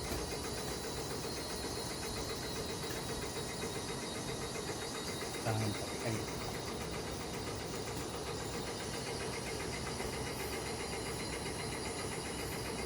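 A motor running steadily with an even hum, and a short low sound about five and a half seconds in.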